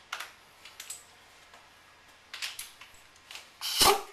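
Scattered light metallic clicks and clinks of small metal parts and tools being handled, with a louder, longer clatter near the end.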